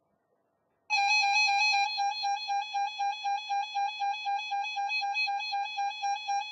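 Electronic alert tone starting suddenly about a second in: a single buzzy beep-tone around 800 Hz with strong overtones. After its first second it pulses rapidly, about four times a second.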